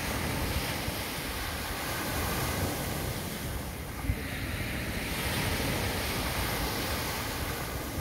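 Small waves washing up onto a sandy beach, the surf hissing in two slow surges, one at the start and another about five seconds in. Wind rumbles on the microphone underneath.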